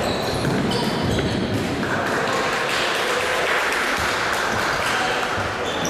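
Futsal play echoing in a sports hall: a few ball kicks, sneaker squeaks on the court, and shouting from players and onlookers.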